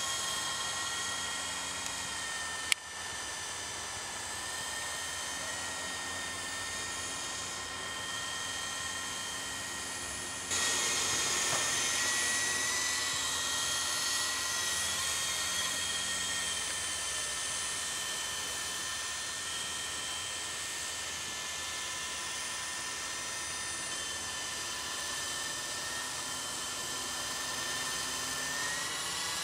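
Radio-controlled model helicopter in flight: a steady high-pitched whine from its motor and rotors, wavering slightly in pitch as it manoeuvres. There is a sharp click about three seconds in, and the sound gets abruptly louder about ten seconds in.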